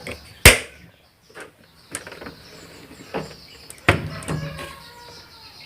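Plastic clicks and knocks from parts of a Panasonic top-load washing machine being handled, with one sharp click about half a second in the loudest, followed by a few softer knocks.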